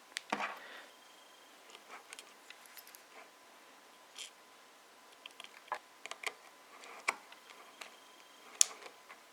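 Scattered faint clicks and ticks of a small screwdriver and a tiny screw being fitted and driven into a phone's housing.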